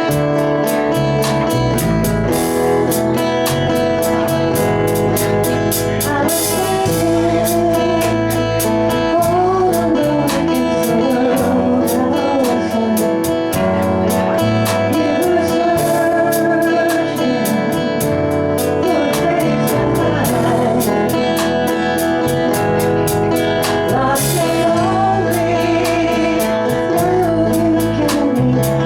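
Live band playing a song with guitar and a singer over a steady beat.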